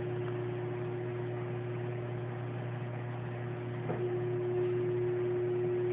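A steady hum, a low drone with a higher tone held over it, with a couple of faint clicks, one near the start and one about four seconds in.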